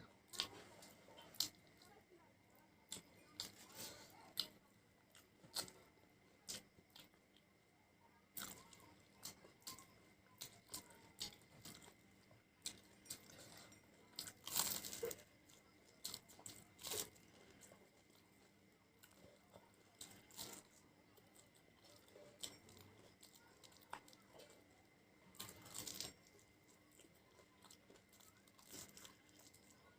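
Close-miked eating: a person chewing and biting fried snacks, with irregular wet mouth clicks and smacks. There is a louder cluster about halfway through and another near the end.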